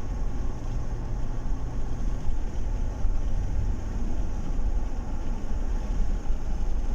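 Chevrolet Tahoe V8 engine and road noise while driving, steady and even, with no stumbling or jerking: the engine is running smoothly now that the misfire from a broken spark plug is cured.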